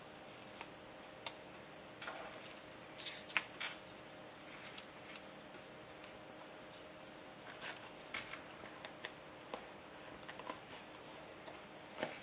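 Handmade paper gift box with dangling metal charms being folded shut and slid into its lid by hand: soft rustles of card with scattered light clicks and taps, the loudest a sharp click about a second in and a cluster of clicks around three seconds in.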